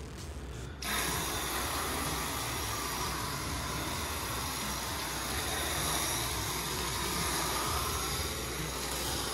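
Pressure washer jet spraying onto a foam-covered car's roof and windows as it is rinsed: a steady hiss of spray that starts about a second in, over the low hum of the washer's pump.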